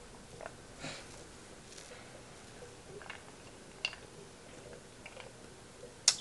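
A man drinking through a straw: faint sips and swallows, with a few soft breaths through the nose and small mouth clicks. A sudden, louder breath out right at the end.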